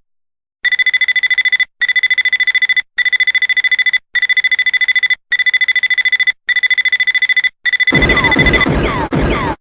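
Gun O'Clock alarm clock's electronic alarm going off: a high-pitched beep pulsing rapidly in bursts of about a second, with short gaps between, seven times over. Near the end a louder, noisier electronic sound with quick falling sweeps joins in.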